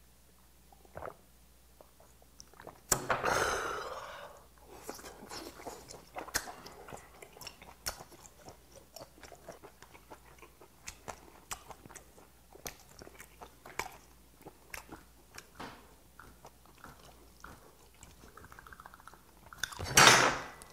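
Close-miked chewing of boiled whelk meat, wet mouth noises with many small clicks as the meat is picked from the shells. A loud breathy exhale comes about three seconds in, right after a sip of makgeolli, and a loud burst near the end.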